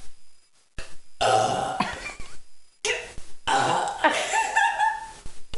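A man burping on purpose: two long, loud belches, the first starting about a second in and the second, with a wavering pitch, following right after it.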